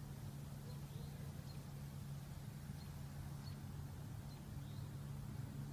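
A bird chirping faintly, short high chirps about once a second over a steady low hum.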